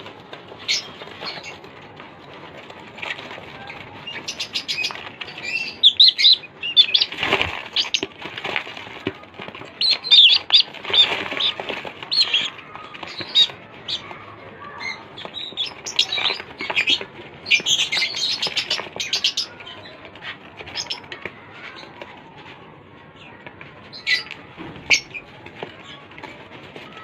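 Budgerigars chirping and chattering in irregular bursts, busiest through the middle, with some wing flapping.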